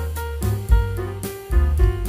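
Instrumental background music with held notes over a steady beat.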